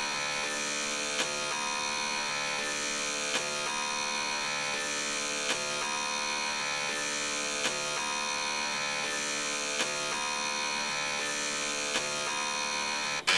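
Floppy disk drives and stepper motors buzzing sustained notes of a quiet, slow passage. The chord shifts about every two seconds, with a small click at each change.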